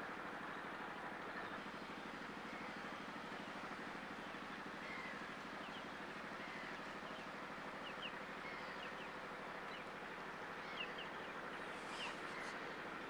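A steady low hum with faint, short bird calls scattered through the second half.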